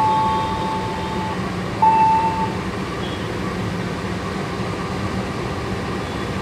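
Diesel locomotive idling with a steady low engine rumble while its train stands in the station. A held two-note tone fades out about a second in, and a brief single tone sounds about two seconds in.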